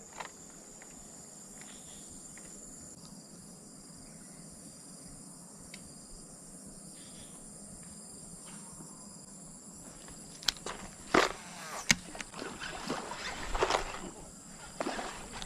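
Steady high-pitched insect chorus, with several sharp clicks and rustling strokes in the last five seconds.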